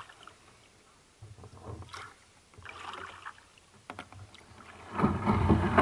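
Sea kayak paddle strokes swishing through shallow water, twice. Near the end comes a much louder, rough rushing of water and hull as the kayak runs into the shallows.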